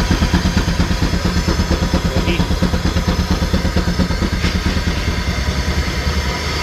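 Frick steam traction engine running under load while belted to a dynamometer: rapid, even exhaust beats from the stack over a steady hum.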